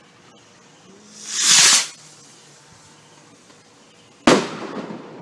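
Fireworks going off: a rushing hiss swells and fades about a second in, then about three seconds later comes a single sharp bang with a ringing tail.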